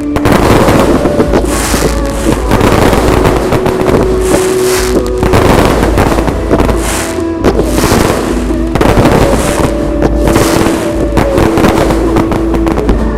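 A dense fireworks barrage of booms and crackling shells, with hissing bursts about every second or so, played over the national anthem on a sound system with long held notes.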